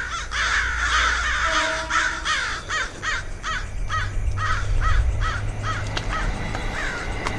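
A bird giving a rapid series of harsh, crow-like caws that starts suddenly, crowded at first and then about three calls a second, thinning out near the end.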